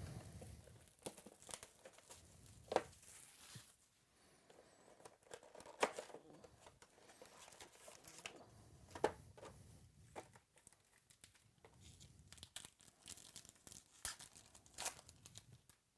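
Trading-card packs being torn open and their wrappers crinkled, with scattered sharp crackles and rustles of the cards being handled.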